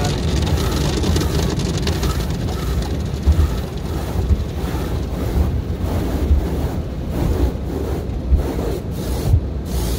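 Automatic car wash heard from inside the car cabin: water spray and spinning wash brushes working over the roof and windshield, a steady rumbling wash with irregular thumps as the brushes hit the body.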